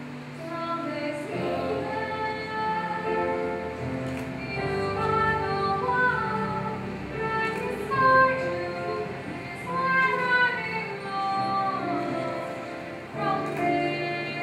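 Music: a woman singing a slow melody of long held notes that glide between pitches, over a soft accompaniment.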